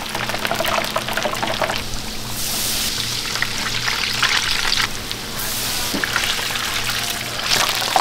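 Hot oil crackling and sizzling in a deep-fryer, with the wet slap and squelch of tongs working pieces through thick batter in a steel bowl. The sizzle swells a few times and is strongest near the end, as a battered piece goes into the oil.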